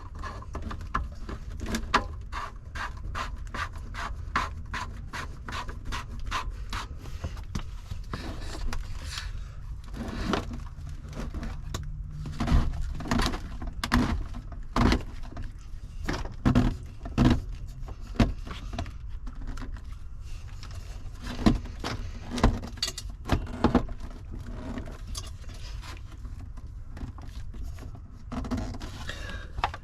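Hand work on the spa heater's metal and plastic fittings: a run of quick clicks over the first several seconds, then scattered knocks, clinks and scrapes of parts and tools being handled, over a low steady hum.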